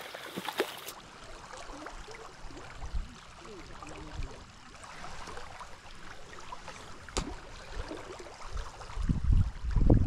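Steady rush of a fast river current, with low rumbling thumps near the end.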